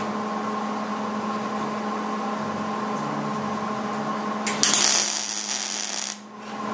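MIG welder laying a plug weld on sheet steel, the arc striking about four and a half seconds in, running for about a second and a half, then cutting off; a steady low hum underneath. The arc starts cleanly because the contaminated wire tip has been snipped off.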